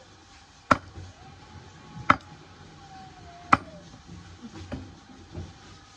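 Bamboo being chopped with a blade: three sharp, loud strikes about a second and a half apart, then two lighter knocks near the end.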